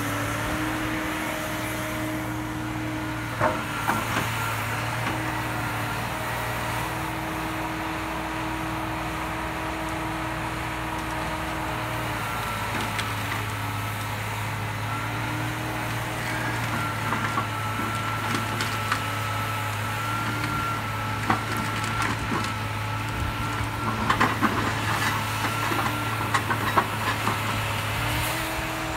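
John Deere 892D LC excavator with a Waratah processing head at work: a steady diesel drone with hydraulic whine that shifts in pitch as the boom swings and the head works. Sharp knocks and cracks come a few seconds in and in a cluster near the end.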